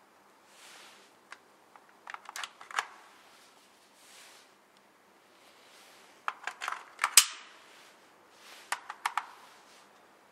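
Sharp mechanical clicks and clacks from handling a Real Sword Type 56 airsoft electric rifle, in clusters about two, six to seven and nine seconds in. The loudest is a single hard clack about seven seconds in.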